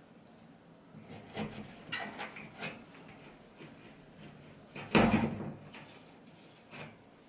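Plastic plasterboard plugs being pushed into holes in a plasterboard ceiling: a few light knocks and scrapes, then one louder knock about five seconds in.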